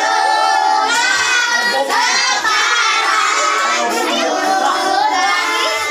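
A group of children and women singing a birthday song together.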